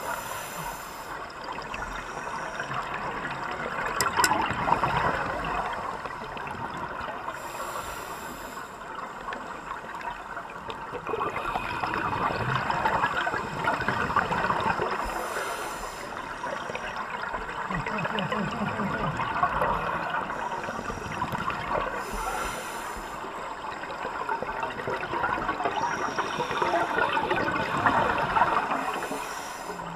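Scuba diver breathing through a regulator underwater: a short high hiss on each inhale, about every seven seconds, each followed by a longer gurgling rush of exhaled bubbles.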